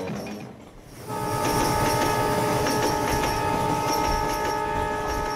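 Diesel locomotive horn sounding one long, steady blast that starts about a second in, over the rumble of the train running on the track.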